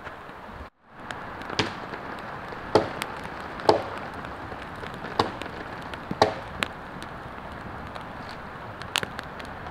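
Campfire of split kindling and dry twigs burning fiercely: a steady rush of flame with sharp, irregular cracks and pops about once a second.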